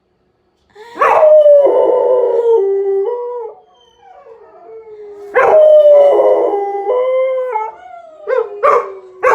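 Dogs howling together in reaction to an ambulance siren: after about a second of silence, two long, wavering howls with several voices overlapping, then short yips near the end.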